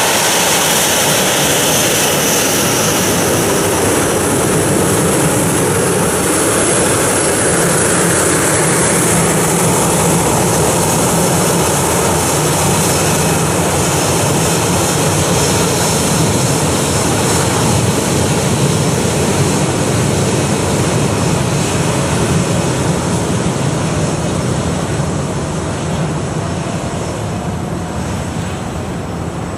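Boeing 737-800's CFM56-7B turbofan engines running at taxi power as the airliner rolls by. The jet rumble is steady, with a thin high whine over it, and fades over the last few seconds as the plane moves away.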